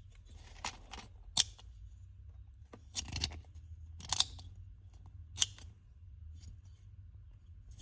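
Sharp, irregular clicks and snicks from a Milwaukee compact pry multitool being handled and its metal parts worked, about five or six in all, a few seconds apart.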